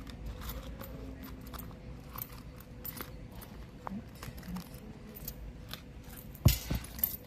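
Coins being handled: light metallic clicks and clinks scattered throughout, with a louder bump and rustle near the end.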